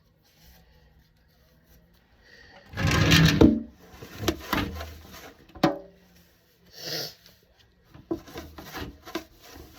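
Refrigerator being wiped out by hand. About three seconds in there is a loud rubbing scrape, followed by scattered plastic clicks and knocks, a short rustle, and light clatter near the end.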